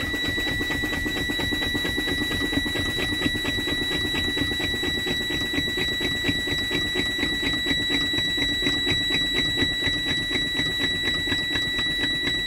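Truck's low air warning buzzer sounding as a steady high-pitched tone over a fast pulse about five times a second. It is the audible warning that air pressure in the brake system has dropped below the warning point as the air is drained.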